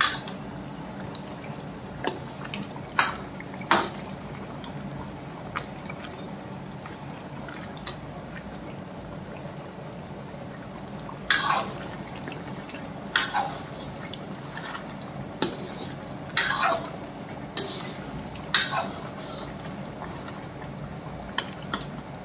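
Long-handled metal spoon scraping and knocking against a metal karahi wok while the thick mutton gravy is stirred and simmers on a gas burner. The strokes come at irregular intervals, most of them in the second half, over a steady low hum.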